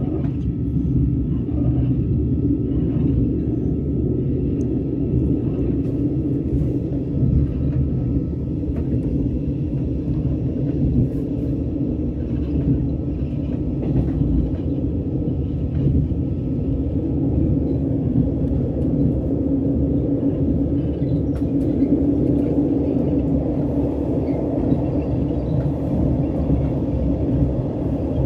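Train running along the track, heard from inside the carriage: a steady low rumble.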